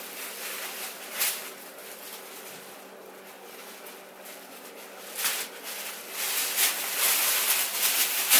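Clothes and a bag rustling as they are rummaged through, with a few sharper rustles, getting louder and busier in the second half.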